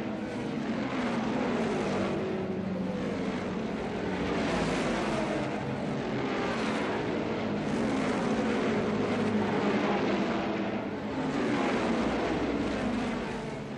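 1976 Formula One race cars' engines running at high revs as several cars go past in turn, the pitch rising and falling with each pass.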